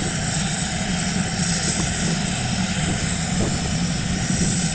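Helicopter running close by: a steady, loud engine and rotor sound with a constant high whine above it.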